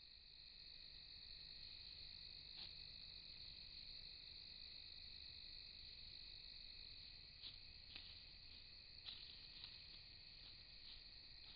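Faint, steady trilling of a night insect chorus, crickets. A few faint clicks and rustles come once and then several times in the second half.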